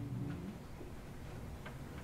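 Low room tone in a pause between spoken sentences: a faint low hum, the last of a man's voice fading at the start, and a faint tick about one and a half seconds in.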